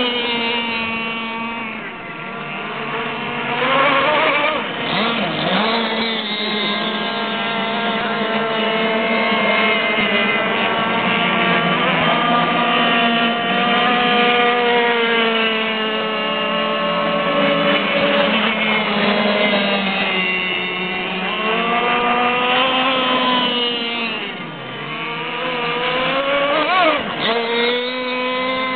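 Several RC cracker box boats' Zenoah G260PUM two-stroke petrol engines running at high revs together, their overlapping pitches drifting up and down as the boats pass and turn. Near the end one engine's pitch dips sharply and climbs again.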